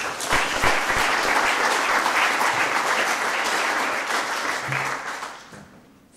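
Audience applauding, starting all at once and dying away over the last second or two.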